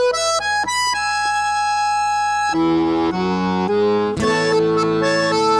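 Accordion (sanfona) playing the instrumental opening of a sertanejo song: a quick run of notes, a held chord, then a lower melody from about two and a half seconds in.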